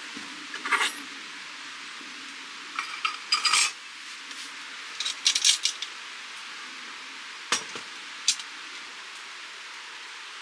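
Metal camp cookware clinking and knocking as a pot and utensils are handled by the stove: short sharp clinks in a few small clusters, over a steady faint hiss.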